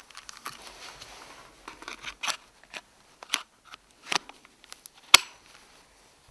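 Clicks and light rattling of a Sightmark battery power pack and its cable being handled and fitted to a Wraith Mini night-vision scope, with several sharp clicks and the sharpest about five seconds in.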